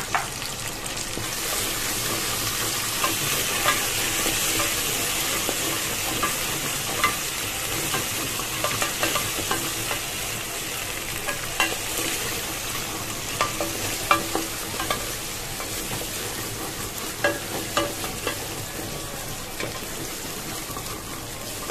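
Onions, ginger-garlic paste and green chillies sizzling steadily in hot oil in a pan while being stirred with a wooden spoon, with scattered sharp clicks throughout.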